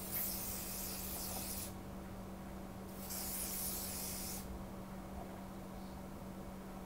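Aerosol hairspray can spraying onto hair in two hissing bursts of about a second and a half each, with a short pause between them.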